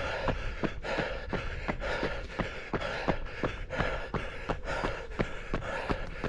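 A runner's footfalls, even and about three a second, with the runner's breathing.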